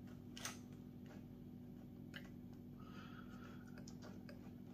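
Faint soft clicks and rubbing as a hand presses an adhesive vinyl chassis skin down onto an RC car's chassis plate, over a steady low hum.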